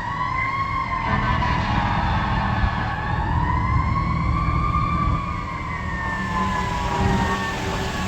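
Fire engine siren sounding a slow wail. Its pitch rises and falls twice over a steady low rumble.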